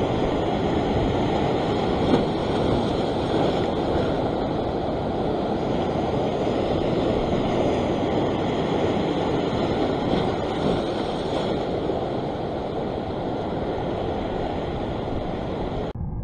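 Ocean surf breaking and washing over a rock ledge: a steady rushing noise with no distinct separate crashes.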